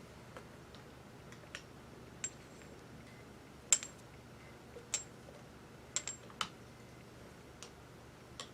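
Scattered light metallic clicks and taps from metal lathe parts and tools being handled, several with a brief high ring. The loudest comes a little before four seconds in.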